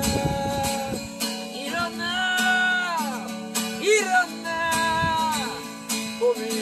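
Acoustic guitar strummed while a harmonica plays the melody in held notes that bend in pitch.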